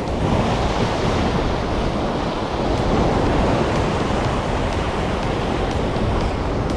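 Heavy surf breaking and rushing against a rocky shore, a steady loud wash that swells a little near the start and again about three seconds in, with wind buffeting the microphone. The waves are big with a rising tide and typhoon swell.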